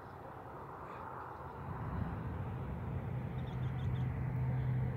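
Outdoor background noise, joined about a second and a half in by a steady low hum of a vehicle engine.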